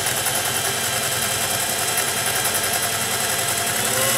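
Vintage Singer 401A Slant-O-Matic sewing machine running steadily at speed, its motor and needle mechanism stitching an arrowhead cam pattern.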